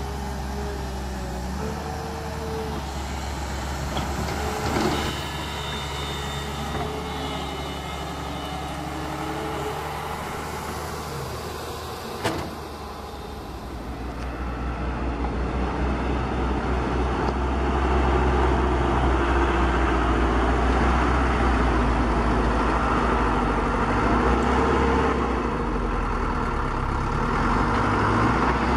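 Radio-controlled toy excavator and tracked dump truck working, with the steady whir of their small electric motors and gearboxes, the pitch shifting as the machines move. There are two sharp clicks, about 5 and 12 seconds in. From about 14 seconds the sound grows louder and stays louder as the loaded truck drives.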